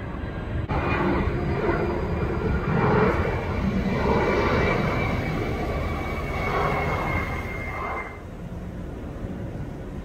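Four-engine Boeing 747 freighter's jet engines on low final approach, a loud roar with a steady high whine. It comes in abruptly about a second in and cuts off about eight seconds in, leaving a quieter jet rumble from the next approaching airliner.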